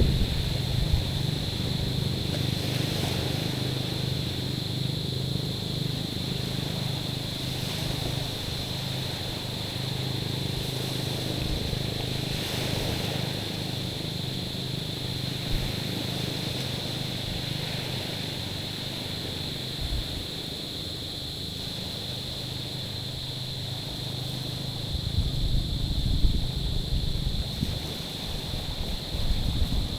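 Small waves washing on a stony shore, with a steady high-pitched drone throughout and low wind rumble on the microphone that swells near the end.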